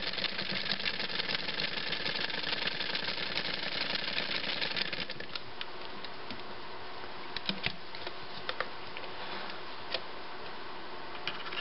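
Domestic 69 Hi-Speed sewing machine running fast and stitching through denim with a rapid, even clatter, stopping about five seconds in. After that come a few separate light clicks and knocks as the handwheel is turned by hand and the work is drawn out.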